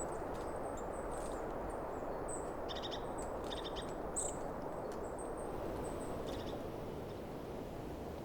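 Steady wind rushing through pine trees, with faint birds chirping and trilling above it. The birdsong stops about two-thirds of the way through, leaving a slightly softer, airy wind in the pines.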